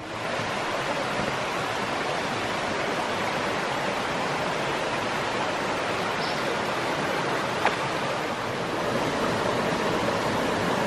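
Shallow, rocky creek flowing over stones and small cascades: a steady rush of water, with one brief click about two-thirds of the way through.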